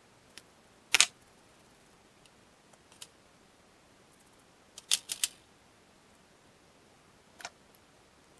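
Sharp clicks of pliers on small metal axle hardware while fitting rubber wheels: a loud click about a second in, a quick run of three clicks about five seconds in, and a few softer ones between and near the end.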